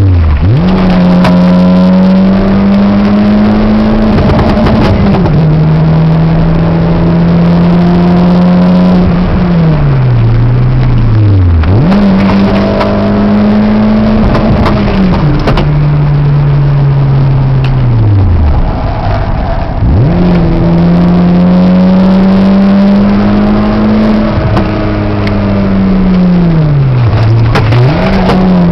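Peugeot 206 engine heard from inside the cabin, driven hard at high revs. Four times the pitch sags slowly over a second or two and then shoots quickly back up, as the car slows for corners and accelerates out of them.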